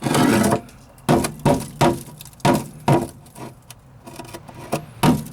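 About ten sharp, irregularly spaced metallic taps and clicks, with a short scraping rustle at the start, as metal tools are handled against the truck's sheet-steel floor pan.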